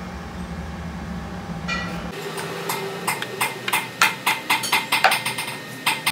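A steady low hum that cuts off abruptly about two seconds in, then a quick, irregular run of about a dozen sharp knocks and taps.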